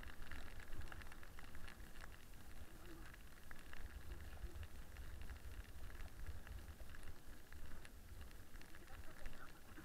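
Toboggan sliding fast downhill over packed snow, its runners hissing and crackling against the snow, with a fluctuating low rumble of wind and vibration on the microphone.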